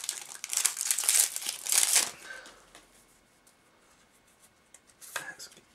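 A booster pack wrapper crinkling and tearing as it is opened, for about two seconds, then quiet with a few faint clicks near the end.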